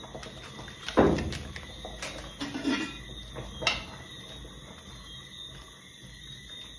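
Kitchen clatter at the stove: a loud knock about a second in, a short rattle a little later, and one sharp click, over a faint steady background.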